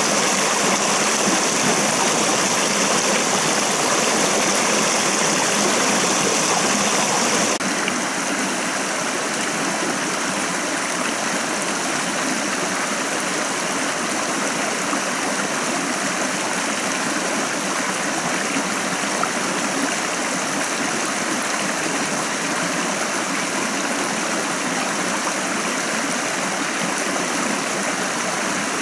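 Small rocky stream running over stones, a steady rushing and burbling of water that gets a little softer about seven seconds in.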